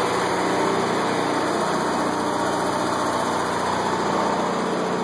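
Onan JC 12.5 kW generator set running steadily under light load, a loud, even engine drone.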